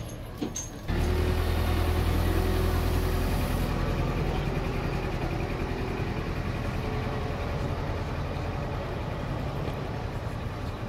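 Engine of a slow-moving parade float's vehicle, running steadily with a low hum. It comes in suddenly about a second in.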